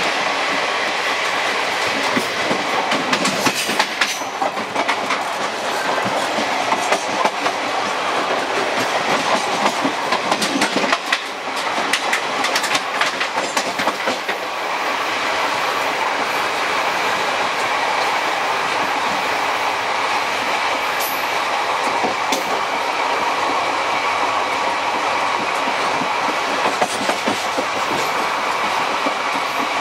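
Passenger train coaches running at speed, heard from the open gangway between two cars: a continuous rumble of wheels on rails with irregular clatter and knocks over the track. The knocking is busiest in the first half and settles into a steadier run after about fifteen seconds.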